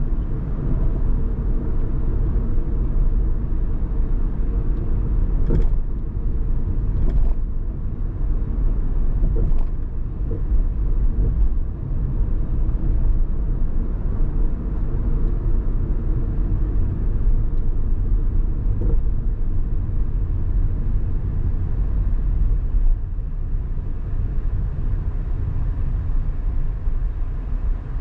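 A car driving through city streets: a steady low rumble of road and engine noise, with a few faint clicks between about six and ten seconds in.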